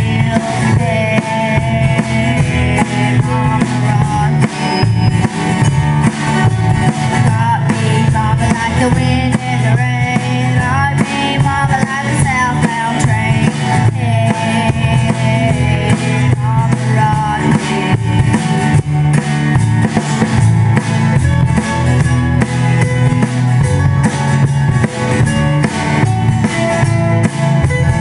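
Live band playing an instrumental passage with upright bass, acoustic guitar and a drum kit keeping a steady beat.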